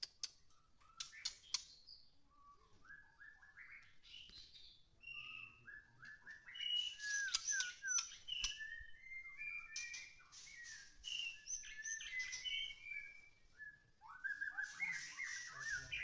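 White-rumped shama (murai batu) singing a long, varied song of whistled notes that glide and step up and down, mixed with quick clicking chatter, with a brief pause near the end before it starts again.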